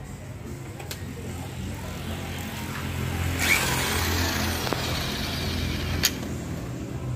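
DCA APB20C corded electric impact wrench running on a car wheel nut to loosen it, starting about three and a half seconds in.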